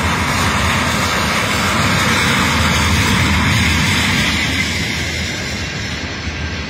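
Freight train's tank cars rolling past at close range: a steady noise of steel wheels on rail, easing slightly near the end.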